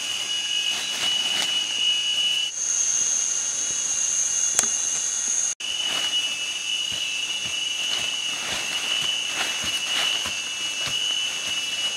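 A wooden digging stick jabbing and scraping into forest soil, a stroke every second or so, over a steady high-pitched insect drone. The drone shifts to a single higher tone for a few seconds in the middle, and the sound drops out for an instant about five and a half seconds in.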